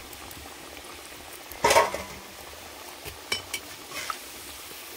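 Thekua deep-frying in oil in an iron kadhai, the oil sizzling steadily. A perforated metal frying spoon knocks against the pan once loudly a little under two seconds in, then clinks lightly a few more times.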